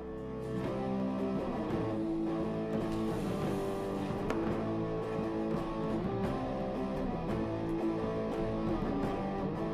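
Background music: a guitar-led instrumental track with a steady rhythm.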